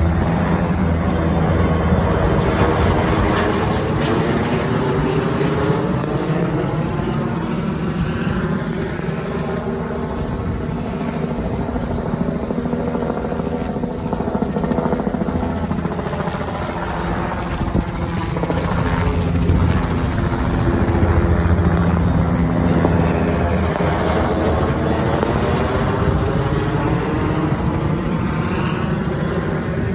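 Police helicopter circling low overhead: a steady rotor and engine drone whose tone shifts and sweeps as it moves across the sky, swelling slightly about 2 seconds in and again about 21 seconds in.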